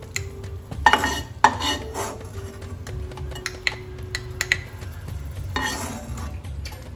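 Stainless steel ladle clinking against a glass bowl and a nonstick kadai while sticky cooked carrot halwa is spooned out, with several sharp clinks about a second in and a longer scrape in the pan near the end.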